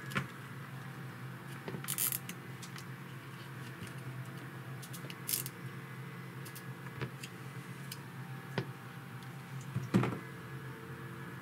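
Small clicks, taps and short scraping rustles of hands handling and fitting small drone parts, with a louder knock near the end, over a steady low hum.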